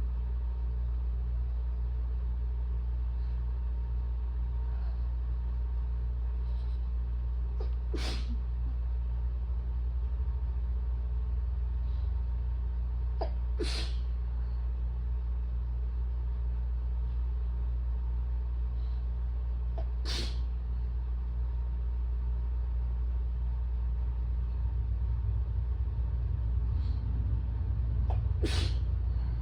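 A woman sneezing four times during an allergy attack, the sneezes spaced several seconds apart, each with a short breath in just before it. A steady low rumble runs underneath.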